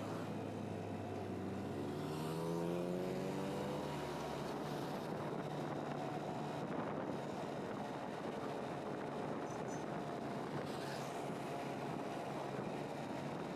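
Motorcycle engine running under way over a steady rushing noise; its note rises between about one and four seconds in as it speeds up, then holds steady.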